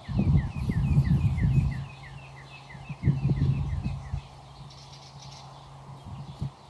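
A bird sings a rapid run of short falling chirps, about six a second, for the first three and a half seconds. Under it, louder low rumbling and knocking comes and goes.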